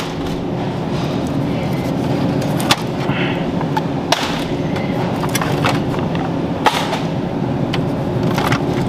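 Shopping cart rolling and rattling over a hard store floor, steady throughout, with a few sharp clacks.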